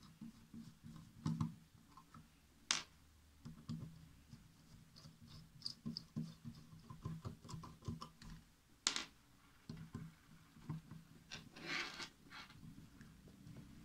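Small clicks, taps and scrapes of a screwdriver and metal parts as the screws holding a graphics card's cooler are loosened and the cooler is handled, with two sharper clicks, one about three seconds in and one about nine seconds in.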